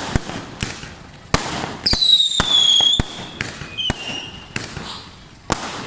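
Fireworks going off: a run of sharp bangs and cracks, with a loud whistling firework about two seconds in that falls slightly in pitch over about a second, and a shorter, fainter whistle just before four seconds.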